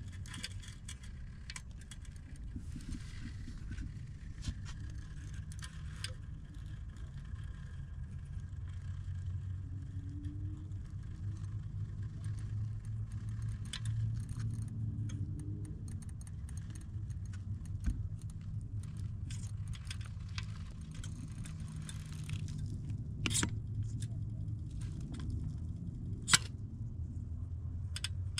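Speedy OAA RC rock crawler with a VFD twin transmission and Vitavon Ryft portal axles, its electric motor and gear drivetrain humming steadily under load as it creeps up rock, with small clicks and scrapes of tyres and chassis on stone. Two sharp knocks come near the end, the second the loudest.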